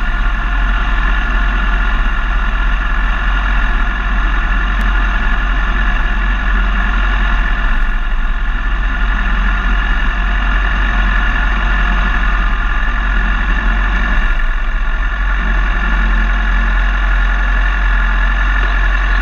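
Suzuki GSX-R sport bike's inline-four engine idling steadily, heard close up through the bike-mounted camera.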